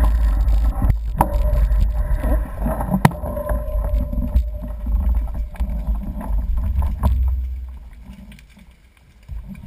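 Wind buffeting the microphone of a camera on a moving bicycle, a steady low rumble with a few sharp knocks. The rumble dies away a little after seven seconds in.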